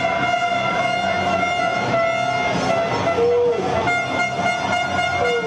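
A loud, steady horn-like tone held without a break, over a noisy background with a couple of short falling cries.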